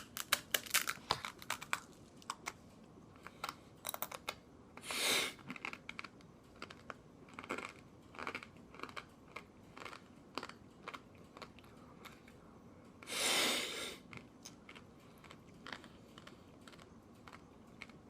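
Crunching and chewing a bite of dry, uncooked instant ramen noodles: a quick run of crisp crunches at first, then slower, scattered crunches. Two short hissing sounds come about five seconds in and again about thirteen seconds in.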